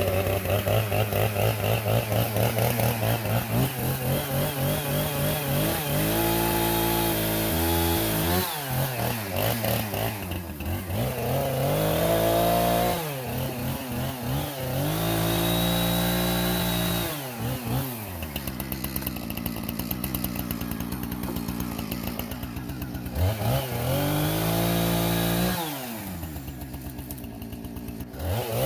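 Two-stroke chainsaw running and cutting tree limbs, its engine revving up and dropping back to idle several times.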